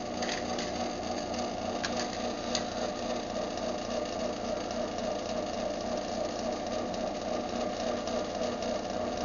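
Craftsman garage door opener's motor running steadily through a closing cycle after a remote press, a smooth even hum.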